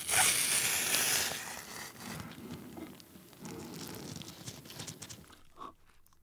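Wet, sauce-coated napa cabbage kimchi (spicy silbi kimchi) being torn and squished in plastic-gloved hands. It is loudest for about the first second, then softer squelching and rustling as the piece is pressed onto a rice burger.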